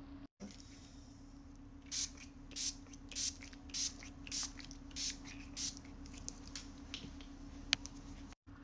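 A pump spray bottle misting in quick repeated squirts, about nine short hisses roughly every half second, over a steady low hum, with a single sharp click near the end.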